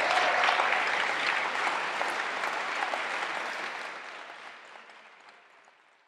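Audience applauding, the clapping fading away over the last few seconds.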